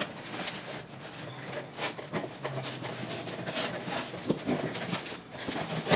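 Cardboard and packaging rustling and scraping as contents are worked out of a tight box, with irregular crinkles and small knocks.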